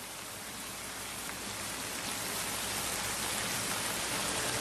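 Steady rain sound, an even hiss that grows slowly louder, with soft sustained music notes coming in near the end.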